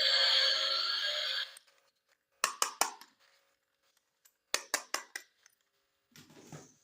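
Background music with synthetic singing cuts off about a second and a half in. Then come sharp clicks and clacks of hard plastic toy pieces being handled, in two short clusters, and a softer knock near the end.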